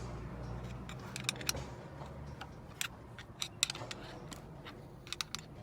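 Irregular light metallic clicks and taps from the camshaft of a Renault 1.0 12-valve three-cylinder engine being worked by hand, knocking from end play. The camshaft has worn into its head bearing caps, leaving lateral play that causes the engine noise. A low hum in the background stops about two seconds in.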